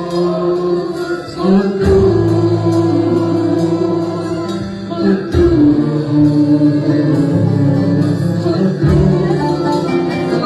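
Arabic Christian worship song: a choir holding the word "qudous" (holy), with the band playing on underneath and chords changing every few seconds.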